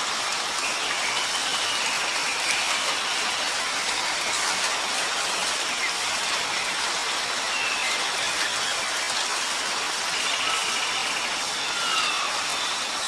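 Steady rain falling, an even hiss throughout, with a few faint short falling whistles about a second before the start and again near the end.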